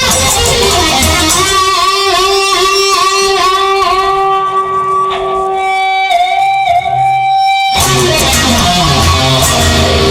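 Instrumental rock music led by Stratocaster electric guitars: a lead line of held notes with vibrato and bends over the band. The bass and drums drop out for a few seconds and come back in near the end.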